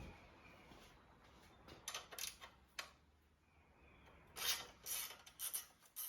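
Work on a motorcycle with hand tools and parts: a few faint clicks about two seconds in, then several short, louder rasping scrapes near the end.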